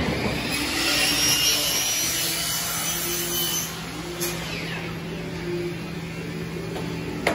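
Shop-floor machinery noise: a steady low hum with the hiss of a power tool running, louder for the first few seconds and then easing off.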